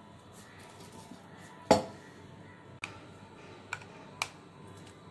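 Kitchen handling sounds: one sharp knock about two seconds in, then a few light clicks, as a bowl and spoon are handled on a counter.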